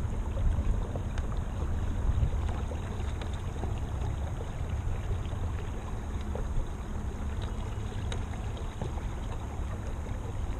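Kayak moving along under an electric trolling motor: a steady low hum and the rush of water along the hull, with small splashes and ticks here and there.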